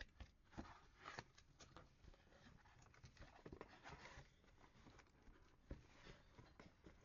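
Faint, scattered clicks and soft rustling, irregular and close by.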